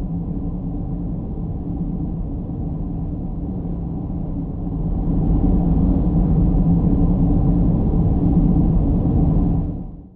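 A steady low rumbling noise without clear clicks or tones. It grows louder about five seconds in, then fades out near the end.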